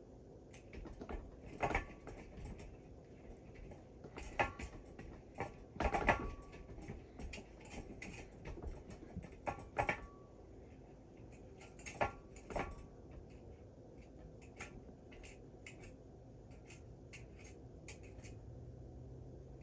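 Irregular light clicks and knocks of small hard objects being handled, with louder knocks about 2, 6, 10 and 12 seconds in, over a faint steady hum.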